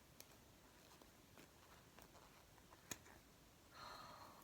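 Near silence, with a few faint clicks and a soft rustle near the end, as a foam squishy is being cut in half.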